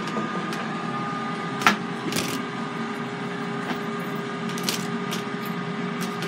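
Air fryer running with a steady fan hum, with a few sharp clicks and knocks from metal kitchen tongs being handled, the loudest just under two seconds in.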